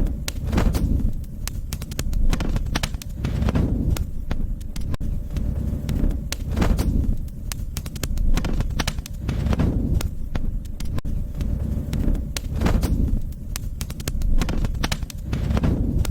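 Wood fire burning in a fireplace, crackling and popping many times a second over a low rumble that swells and fades every second or two.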